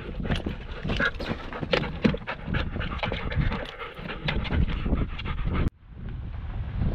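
Chesapeake Bay retrievers panting, with irregular clicks and scuffs as they move about in a pickup truck's cab. About five and a half seconds in this cuts off abruptly to the steady wind and road noise of the truck driving on a gravel road.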